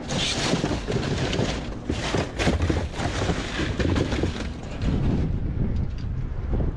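Wind rumbling on the microphone, with crackling and rustling of cardboard boxes and plastic bags being shifted in a metal dumpster during the first few seconds.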